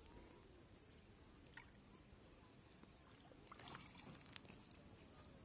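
Faint trickling and splashing of water as a cast net is drawn in through shallow lake water, with a few small splashes in the middle.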